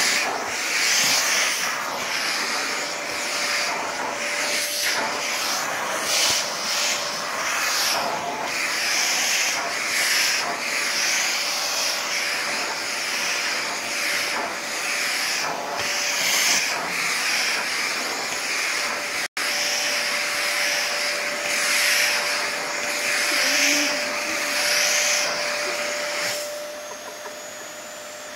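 Vacuum cleaner running on a rug, a steady hissing drone with a thin steady tone. It swells and fades every second or two as the floor head is pushed back and forth, and grows quieter near the end.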